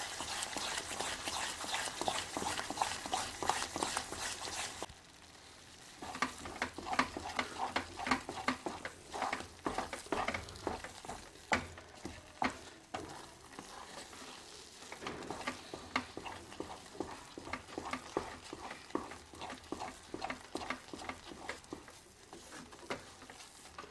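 Wooden spatula stirring and scraping thick moong dal halwa in a pan as it roasts in ghee, with sizzling underneath. A steady sizzle for about the first five seconds, then repeated stirring strokes over a fainter sizzle; the halwa is thickening and the ghee is starting to separate at the sides.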